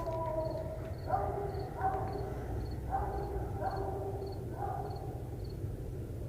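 A distant coonhound barking on a coon track, about five short calls in the first five seconds: the hound is locating the tree the raccoon went up. A cricket chirps steadily underneath.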